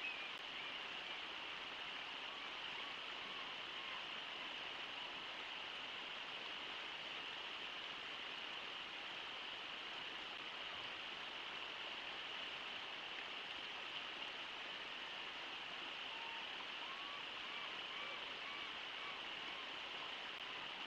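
Steady rush of a river running over a waterfall and shallow riffles. Faint gull calls, a few short notes in a row, come near the start, a couple of seconds in, and again in the last third.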